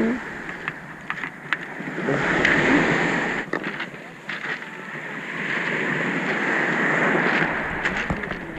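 Small waves washing up on a pebble beach, the rush swelling and fading twice, with a few light clicks.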